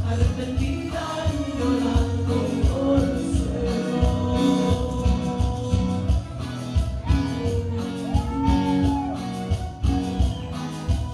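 Live band performing: a singer's voice over a steady drum beat and backing instruments.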